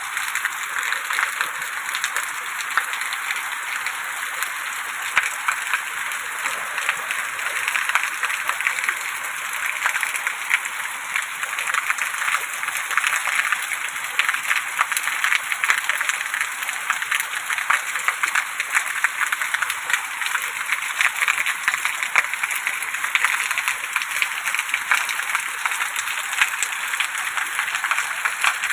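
Steady rain falling: an even hiss of rain with many sharp, separate drop hits scattered through it, unchanging throughout.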